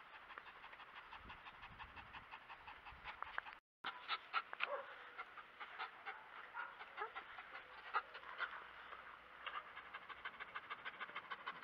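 Beauceron dog panting in quick, even breaths, with a brief dropout about four seconds in.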